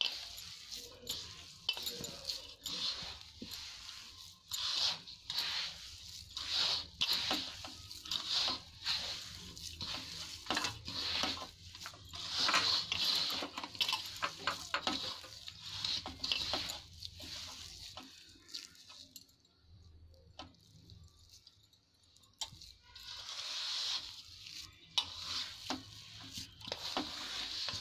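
A hand mixing crumbly mawa (khoya) and powdered sugar (boora) in a metal vessel: repeated gritty rustling and scraping strokes, about one or two a second. The strokes die down for a few seconds past the middle and pick up again near the end.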